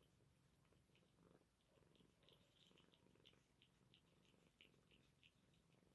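A mother Sphynx cat purring faintly, with faint quick wet clicks of her eating soft cat food from a plate, about three a second from about two seconds in.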